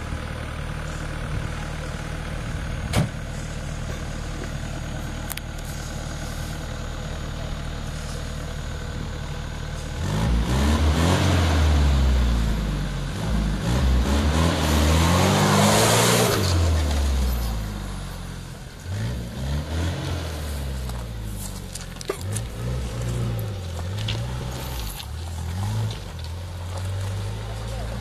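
Off-road vehicle's engine idling steadily, then from about ten seconds in revved hard, rising and falling in pitch two long times with a loud hiss, followed by several shorter rev blips.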